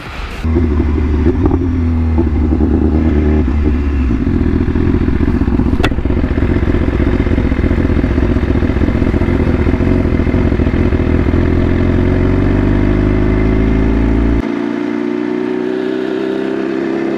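Motorcycle engine running under way, with a heavy low rumble that drops away suddenly about fourteen seconds in. The engine note climbs gradually near the end as the bike speeds up, and there is one sharp click about six seconds in.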